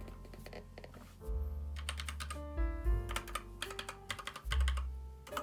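Background music with changing bass notes, over irregular bursts of clicking from the keys of a mechanical keyboard with red switches being pressed.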